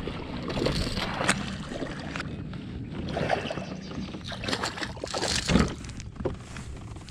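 A hooked bass splashing at the surface beside a kayak as it is reeled in, with scattered sharp knocks. The loudest splash comes about five and a half seconds in, as the fish is lifted from the water.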